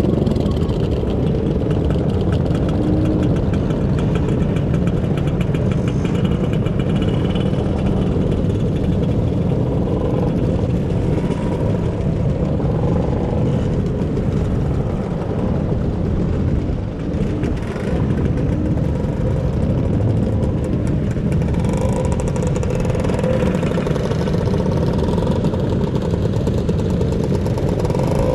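Scooter engine running steadily, its pitch drifting slightly up and down over a continuous low rumble.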